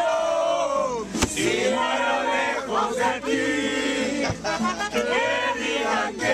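A group of men singing and shouting loudly together, one into a handheld microphone, with two sharp knocks, about a second in and just after four seconds.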